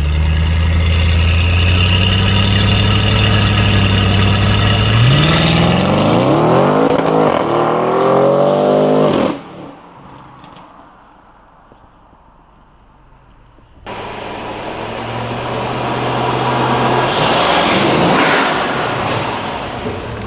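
2014 Audi RS7's twin-turbo V8 idling, then revved with the pitch climbing for a few seconds before cutting off abruptly. After a few seconds of quiet the engine is heard again, swelling louder and then easing near the end.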